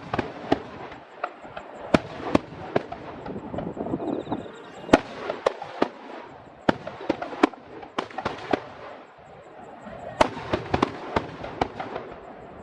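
Aerial fireworks display: a rapid, irregular string of sharp bangs from bursting shells, some much louder than others, over a steady background rumble.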